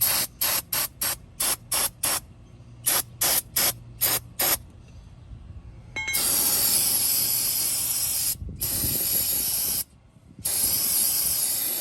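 Aerosol brake cleaner sprayed onto a brake caliper: about a dozen quick short spurts of hiss, then three long continuous sprays with brief pauses between them.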